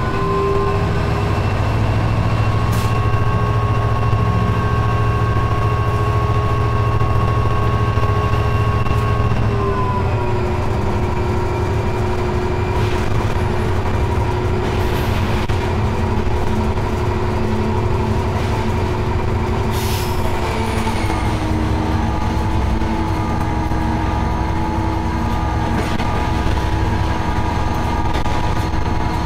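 Diesel locomotive engine running, heard from inside the cab, with a steady low rumble and a humming note that steps down in pitch twice, about a third of the way in and again about two-thirds through. A few sharp clicks from the wheels crossing rail joints and points.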